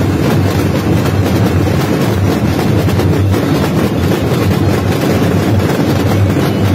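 Two drumlines of marching snare drums playing together. Many sticks strike the drums at once, making dense, loud drumming with no breaks.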